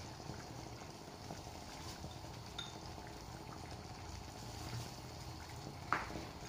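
Faint steady simmering from a clay tajine on the gas stove, with a few soft clicks as frozen peas are placed on the vegetables by hand, and one sharp tap about six seconds in.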